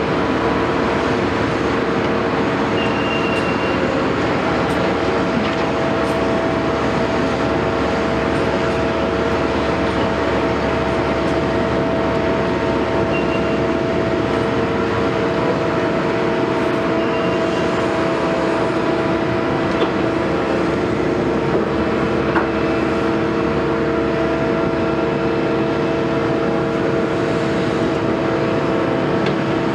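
Caterpillar 329E excavator's diesel engine running steadily, a constant drone with several held tones, and a couple of faint knocks about two-thirds of the way through.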